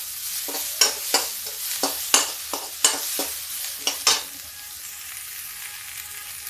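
Chopped onion and green chilli frying in a little oil in a kadhai, with a steady sizzle. For about the first four seconds a perforated steel spatula stirs them, scraping and clicking against the pan many times. After that only the sizzle goes on.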